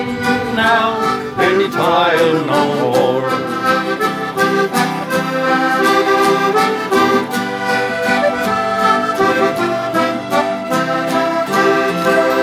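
Instrumental outro of a traditional folk tune: a button accordion carries the melody over strummed acoustic guitars and a mandolin, settling into a long held chord near the end.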